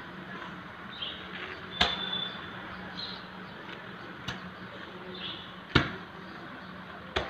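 Hand hammer blows: about four sharp strikes, roughly a second and a half apart, one of them weaker.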